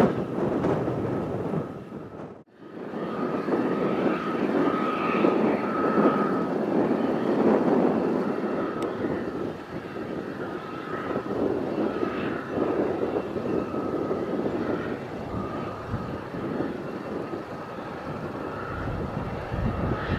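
Jet airliner engines running on the ground, a Ryanair Boeing 737 for most of it: a steady rumble with a high whine that wavers and comes and goes. The sound drops out briefly about two and a half seconds in, then picks up again.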